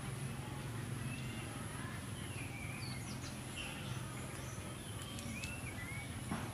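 Short, high chirping animal calls scattered over steady low outdoor background noise, with a brief sharp knock near the end.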